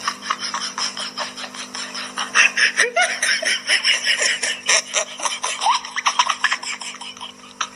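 A person laughing, mostly breathy, with a couple of short rising squeals.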